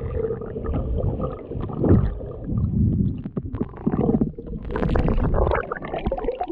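Muffled sloshing and gurgling of lake water around a GoPro held at and under the surface, coming in uneven low surges with a few sharp clicks.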